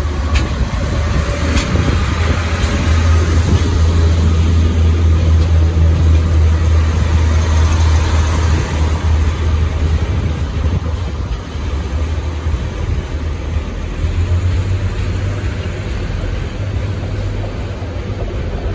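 Class 142 Pacer diesel multiple unit pulling away, its underfloor diesel engine giving a loud, deep, steady drone under power that eases off about midway and swells again. A couple of sharp clicks come in the first two seconds.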